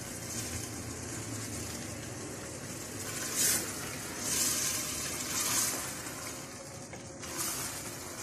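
Soaked black-eyed peas frying in oil and tomato-onion masala in a steel pot while being stirred with a wooden spoon: a steady sizzle that swells four times in the second half as the beans are turned over.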